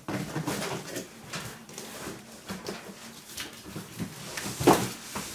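A large PC case being worked out of its cardboard box and packing: irregular scraping, rustling and knocking of cardboard and packing material, with one louder knock just before the end.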